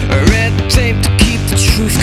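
Rock music with a steady drum beat and a wavering melodic line.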